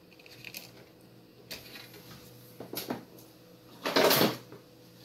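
Handling noise from the opened satellite receiver being moved about on the bench: a few light knocks, then a louder half-second scrape about four seconds in.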